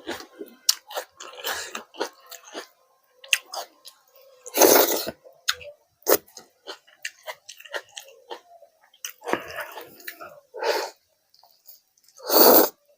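Close-miked eating: wet chewing and lip smacking on a curry-and-rice meal, in many short clicky strokes, with two louder, longer bursts, one about four and a half seconds in and one near the end.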